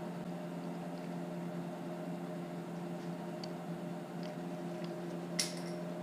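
Steady low hum, with a few faint clicks as small spring clamps are fitted onto a thin plywood part, then one sharper click about five and a half seconds in as a small strip of 1/8-inch wood drops to the floor.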